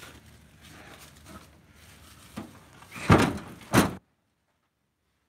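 Heavy ash firewood rounds knocking against a pickup truck bed as they are rolled to the tailgate: two loud thuds about three seconds in, less than a second apart. The sound then cuts out completely.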